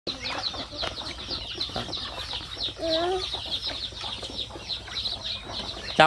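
A flock of chicks and ducklings peeping continually, short high falling chirps several a second, with hens clucking among them; a single lower call rises briefly about halfway through.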